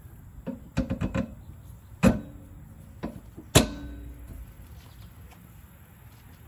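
Metal clanks from a shock absorber being handled against its steel lower mounting bracket on the rear axle: a quick run of light knocks, then two sharp, ringing clanks about a second and a half apart.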